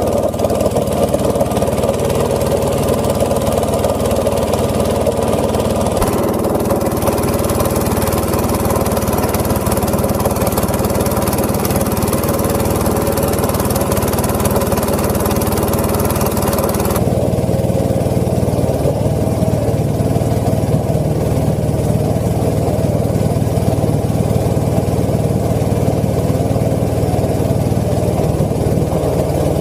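Small single-cylinder petrol engine of a wooden longboat running steadily under way, with water and wind noise. The sound shifts abruptly twice, about six and seventeen seconds in.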